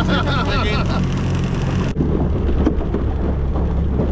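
Small outboard motor running steadily, pushing an aluminium dinghy along, with wind and water noise over it.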